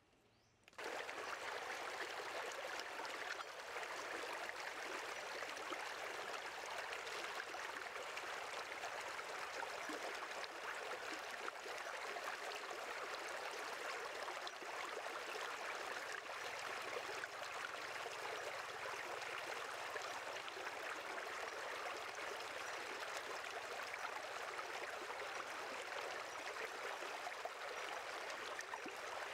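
Steady rush of shallow stream water running over rocks, starting abruptly about a second in.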